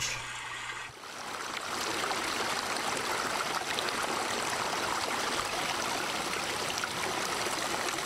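Rocky mountain stream rushing over and between boulders: a steady rush of water that fades in about a second in and then holds even.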